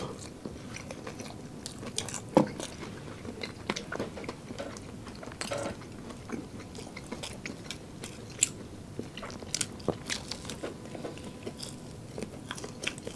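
Close-miked biting and chewing of crispy fried chicken: irregular crisp crunches of the breading, with one louder bite about two and a half seconds in.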